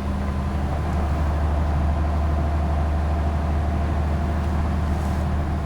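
Route bus running, heard from inside the passenger cabin: a steady low engine drone with road noise.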